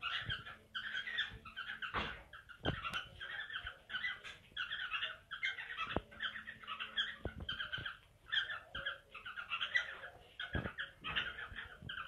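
Cockatiels chattering: rapid high chirps in short repeated runs, broken by a few sharp knocks.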